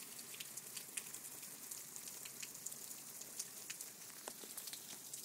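Steady light hiss of falling precipitation, with many scattered sharp ticks of drops striking nearby surfaces. No thunder is heard.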